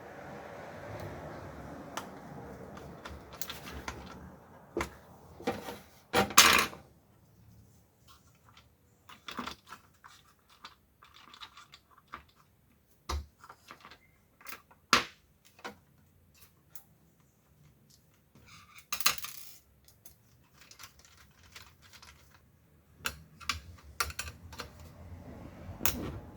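Small plastic toy-car gearbox parts and tools handled on a work surface: scattered sharp clicks, taps and knocks, the loudest about six seconds in. A soft steady rushing noise fills the first few seconds.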